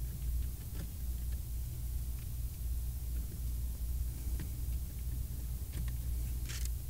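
Steady low room hum with a few faint, scattered clicks and ticks as a Phillips screwdriver backs out the screws holding an ATM's card reader to its control panel.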